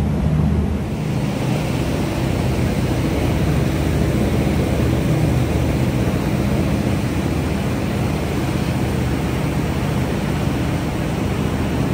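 Tour boat under way at speed: a steady low drone of its engines under the loud rush of the wake churning and foaming behind the stern.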